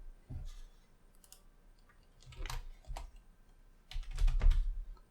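Computer keyboard and mouse: a few scattered keystrokes and clicks as rotation values are typed in, with a louder cluster of taps about four seconds in.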